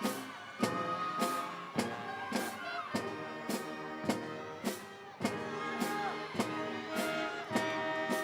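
Instrumental music with a steady drum beat, a little under two beats a second, under sustained pitched notes.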